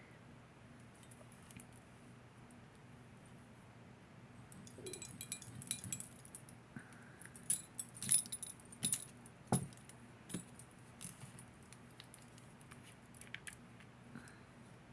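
Small metal jewelry pieces clinking and jingling as they are handled and sorted by hand, a quiet start and then a few seconds of clustered clinks and rattles before a few scattered ticks.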